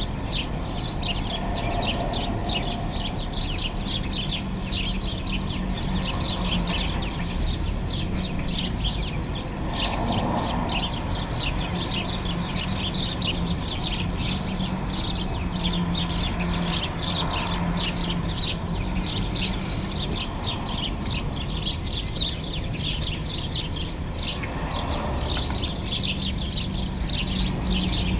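A flock of sparrows chirping continuously, many short overlapping chirps from several birds at once, with no pauses.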